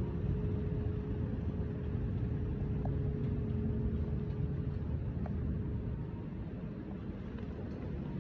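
Steady low rumble of outdoor street ambience on a rainy day, with a faint steady hum that fades out about halfway through.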